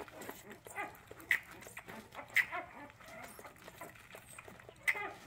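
Newborn puppy suckling formula from a small nursing bottle: soft wet sucking and smacking clicks, with three short, sharper sounds about a second in, near the middle and near the end.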